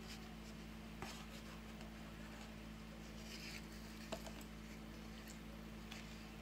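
Faint clicks and light scrapes of a metal fork on a paper plate while eating a slice of brownie cake, the sharpest click about four seconds in, over a steady low electrical hum.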